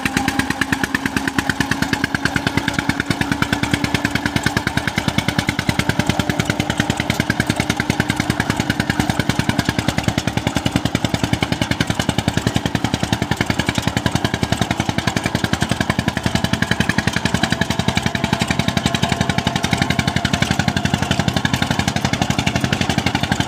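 Ford 3600 tractor's three-cylinder engine running steadily under load as it tows another tractor hitched behind it, with an even, rapid firing beat.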